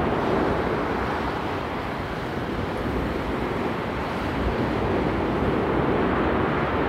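Steady rushing noise of a wind-driven forest fire, with no separate crackles or pops.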